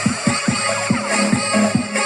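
Electronic dance music played through an Eco Juice Boom 360 portable speaker for a bass test. A fast kick drum, each beat dropping in pitch, hits about four to five times a second over a held bass note.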